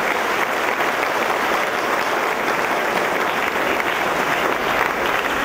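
Audience and cast applauding steadily.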